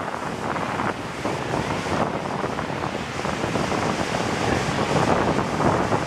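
Ocean surf breaking and washing up the beach in a steady rush, with wind buffeting the microphone.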